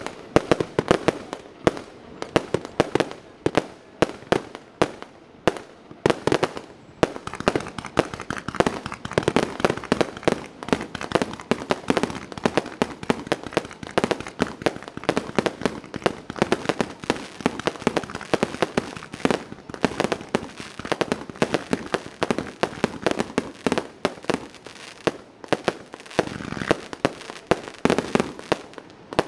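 Twinkle Superstars consumer firework cake firing its shots in quick succession: a dense, continuous stream of sharp pops and bangs as the shells launch and burst.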